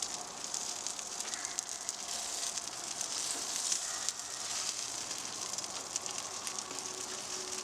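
Chicken legs sizzling on a non-stick grill mat over a grill: a steady crackling hiss with many small pops of fat and juices.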